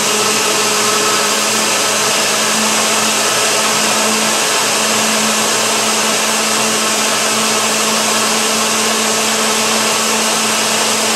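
Countertop blender running steadily on its high setting, blending frozen strawberries, bananas and coconut water into a smoothie, with a steady motor hum under the whir.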